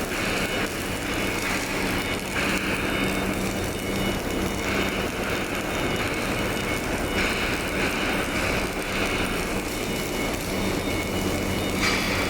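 Automatic pipe welding machine running: a steady hum with a hiss that comes and goes every second or two.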